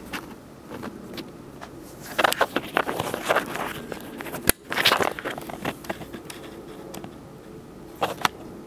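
Handling noise: scattered rustling and clicks, with one sharp click about four and a half seconds in and two more near the end.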